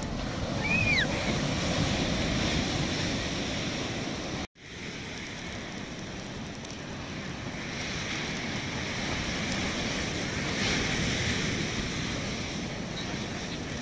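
Ocean surf breaking and washing up the beach, with wind on the microphone. A short high chirp sounds about a second in, and the sound cuts out for an instant around four and a half seconds in.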